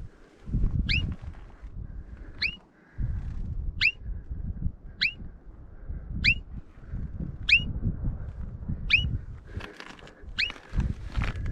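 An animal hidden in the rocks calling: eight short, sharp, high squeaks, each sliding down in pitch, spaced about a second and a quarter apart. Low wind rumble on the microphone runs underneath.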